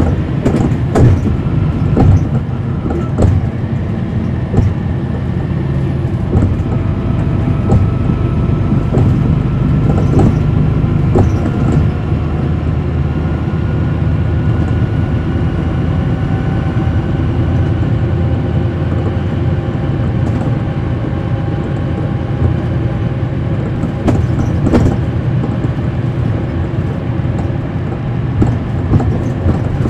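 On board a 2010 NABI 40-SFW transit bus under way, its Cummins ISL9 diesel engine running with a steady low drone. A whine rises slowly in pitch through the middle, and there are frequent knocks and rattles.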